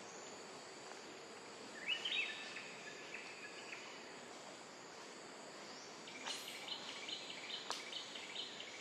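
Forest ambience: a steady high insect drone with bird calls, one drawn-out call about two seconds in and a run of quick repeated chirps from about six seconds, with a single sharp click near the end.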